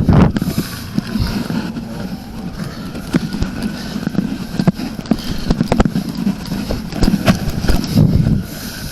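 Rustling and irregular knocks and footsteps of a person moving about, picked up close up by a body-worn camera on a uniform.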